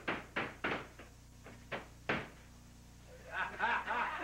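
A handful of sharp knocks, like objects being set down or handled, followed from about three seconds in by several overlapping voices.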